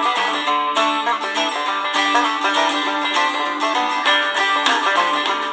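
Banjo-led plucked-string music, quick picked notes, playing from the small speaker of a Tecsun DR-920C portable radio that is receiving it on FM; the sound has no deep bass.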